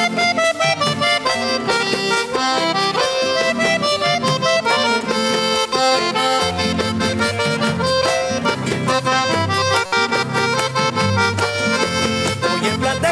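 Instrumental break in a vallenato paseo: a diatonic accordion plays a quick melodic run of short notes over the band's accompaniment. The low end fills in about six and a half seconds in.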